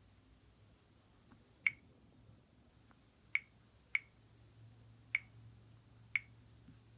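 Five short, sharp clicks at uneven intervals from tapping through the menus of a Samsung Galaxy S Blaze 4G smartphone while picking a ringtone.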